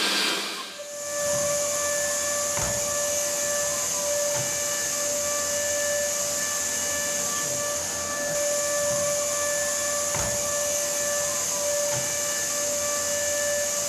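Robot vacuum cleaner running: a steady high whine over a constant hiss, with a faint knock now and then.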